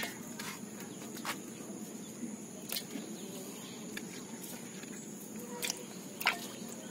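A handful of short, sharp wet clicks and slaps, about five in all, as small fish are handled and picked out of a wet cast net on muddy ground. A steady high insect drone runs underneath.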